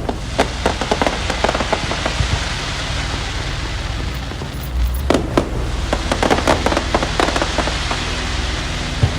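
Fireworks going off: two long spells of rapid crackling pops over a steady hiss, the second spell starting with a low boom about five seconds in.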